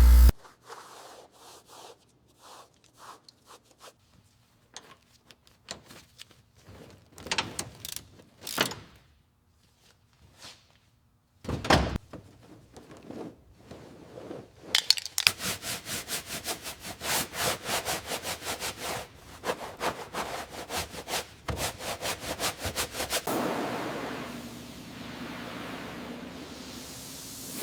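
Hands-on workshop work on an old car: scattered clunks, knocks and scrapes of tools and parts being handled. Partway through comes a quick run of repeated scraping strokes, about three a second. It ends in a steady hiss.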